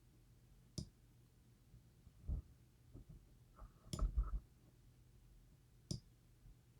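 Three sharp computer mouse clicks spread over several seconds, with a few soft low knocks of handling on the desk between them.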